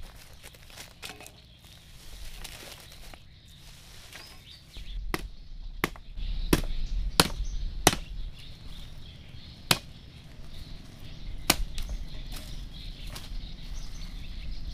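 A series of sharp strikes, about eight of them at uneven intervals, starting about five seconds in.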